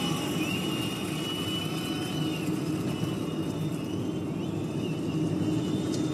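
Steady road and engine noise of a car driving along an asphalt road, heard from inside the cabin, with a low hum and no changes in speed. A few faint, thin, high gliding tones sound over it.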